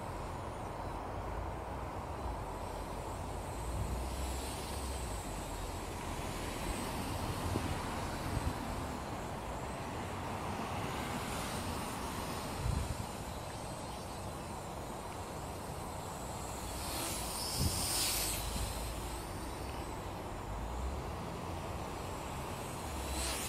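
Steady outdoor road-traffic noise, with a car swelling past about 17 seconds in.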